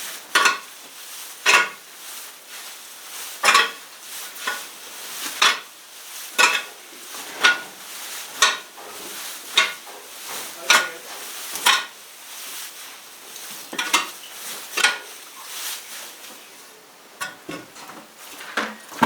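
Damp dairy cattle feed (soaked dairy meal mixed with silage, napier grass and lucerne) being turned and mixed by hand. It makes repeated rustling, scraping strokes, roughly one a second.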